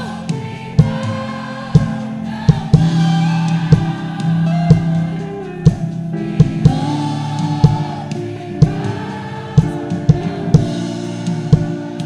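A group singing a gospel worship chorus with band accompaniment and a steady drum beat.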